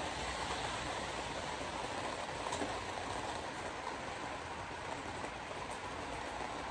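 Car driving in heavy rain: a steady rush of rain and tyres on a wet road.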